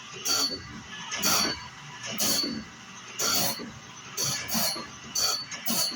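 Wood-mizer BMS250MU sharpeners' CBN grinding wheels profiling band saw mill blade teeth one at a time. Each tooth gives a short grinding squeal, roughly once a second, with the two machines' strokes partly overlapping.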